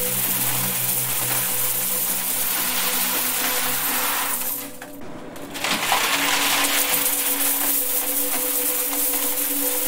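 A steady stream of coins pouring and clinking onto a pile of coins in a metal box, over a few steady low tones. About halfway through the pouring fades out for roughly a second, then starts again. The low tones change at the same moment.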